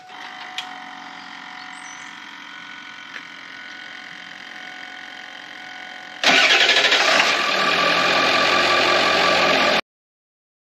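Ford 7.3-litre Power Stroke diesel running with its newly fitted power steering pump while the wheel is turned lock to lock, bleeding air from the steering system. A steady hum of several tones, much louder and rougher from about six seconds in, then cutting off suddenly near the end.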